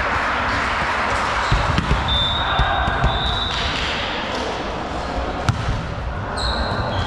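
A volleyball bouncing on a sports-hall floor several times, with a sharp smack a little later, echoing in the large gym. High squeaks come in between, over a background of players' voices.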